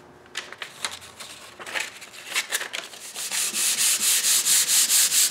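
Hand sanding a mahogany tabletop with 220-grit sandpaper. There are a few scattered scratchy rubs at first, then about three seconds in it settles into quick, even back-and-forth strokes, about three or four a second. The paper is clogging rapidly with residue of the old finish.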